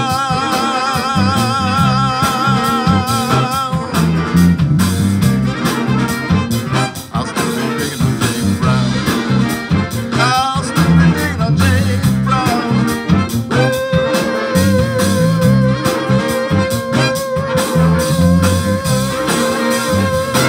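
Live band with saxophones and brass backing a male singer over a steady beat. A wavering held note opens the passage, and from about two-thirds of the way through one long steady note is held for about seven seconds.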